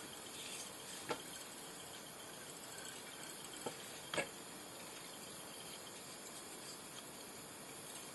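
Faint steady hiss of room tone with three small clicks, one about a second in and two close together around four seconds in.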